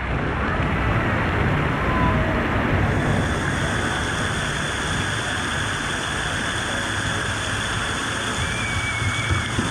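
Steady rush and splash of water from a water park's splash-pool sprays, with faint distant voices over it.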